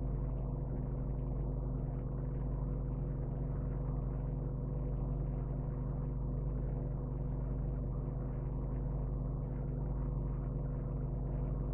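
Steady low electrical-sounding hum, a stack of even tones that never changes, with a faint hiss above it.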